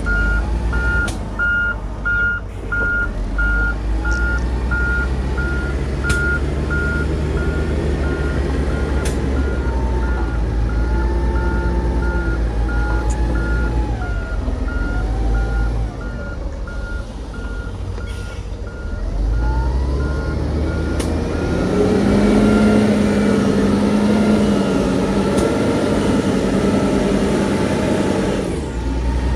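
Dump truck's reversing alarm beeping steadily, about twice a second, over heavy diesel engines running. The beeping stops about halfway through, and an engine then revs up and runs louder under load.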